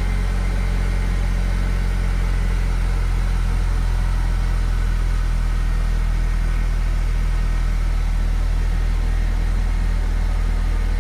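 A Mercedes-Benz C250 W204's four-cylinder engine idling steadily while it drives the brake vacuum pump.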